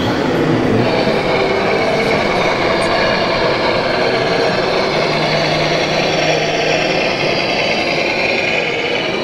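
Radio-controlled model trucks driving, with a steady even drone over the din of a busy exhibition hall.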